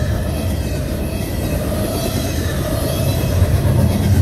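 Double-stack intermodal well cars of a CSX freight train rolling past, a steady rumble of steel wheels on the rails.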